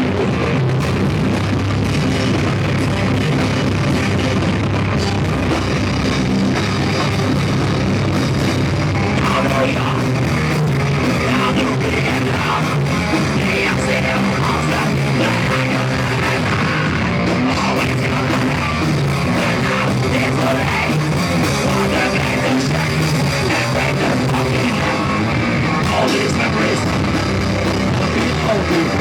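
Live rock band playing loud and distorted, with electric guitars and a drum kit. The recording is rough and overloaded.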